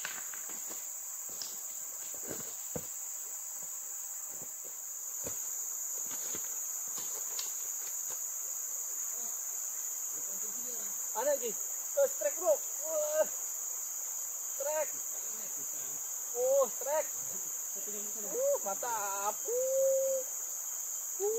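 Steady, high-pitched insect chorus from the forest, unbroken throughout. In the first few seconds there are a few clicks of boots on loose river stones.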